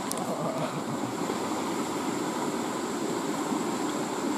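Steady rushing of a small river's current flowing past a rocky bank.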